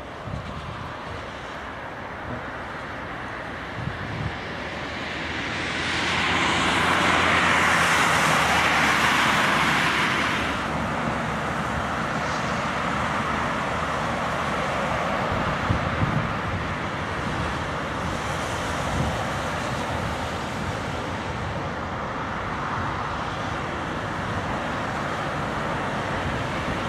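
Cars driving on a wet test track: a steady road-traffic rumble, with one car passing close about six seconds in, its tyres hissing on the wet surface for several seconds before it fades back to the steady background.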